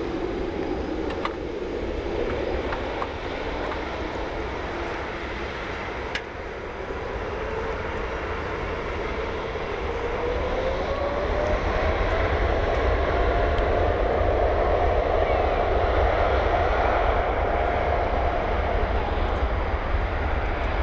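Jet airliner engines: a steady roar with a whine that rises in pitch from about a third of the way in, the roar growing louder in the second half.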